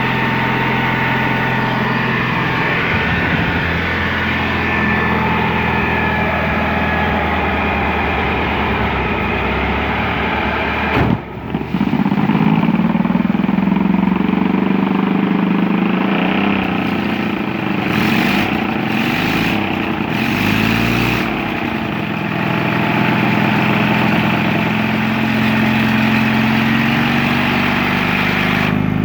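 Small air-cooled engine with a small muffler running steadily. About eleven seconds in the sound breaks off briefly and comes back louder, its speed rising and falling.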